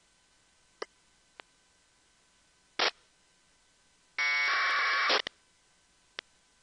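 APRS radio traffic on 144.390 MHz FM from an RTL-SDR receiver: a few short squelch clicks and a brief burst of static, then about a second of 1200-baud AFSK packet data tones, ending in a click.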